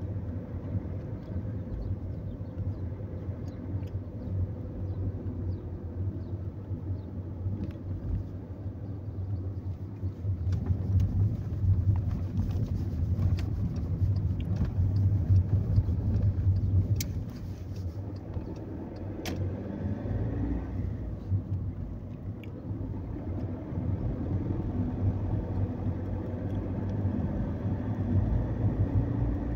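Car driving, heard from inside the cabin: a steady engine and tyre rumble. It grows louder for several seconds around the middle.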